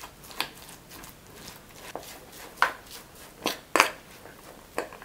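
Fork mashing canned fish in a bowl: about six soft, irregular taps and scrapes of the fork against the bowl, the loudest two close together between three and four seconds in.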